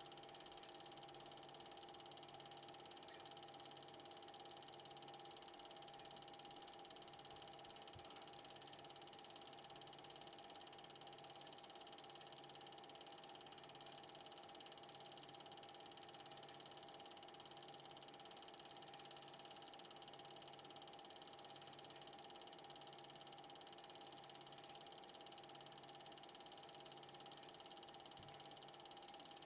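Film projector running: a faint steady mechanical hum and whine with hiss, and a soft low throb repeating a little over once a second.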